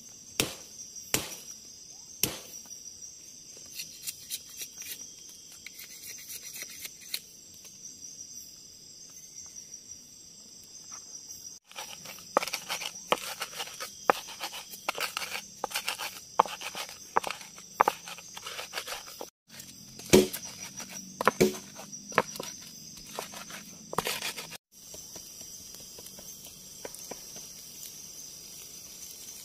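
Night insects chirring steadily in a high band, with scattered sharp clicks and knocks that come thick and fast through the middle of the stretch.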